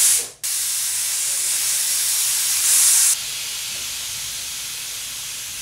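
Steam hissing out of a Prestige pressure cooker's vent as its whistle weight is held up with a wooden spatula, releasing the pressure immediately after cooking. A short puff comes first, then a steady hiss from about half a second in, slightly louder just before three seconds and softer after, cutting off near the end.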